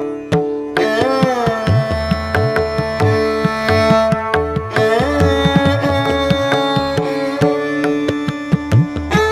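Instrumental background music in an Indian classical style: long held string notes that slide in pitch, over a steady hand-drum rhythm with low, pitch-bending strokes.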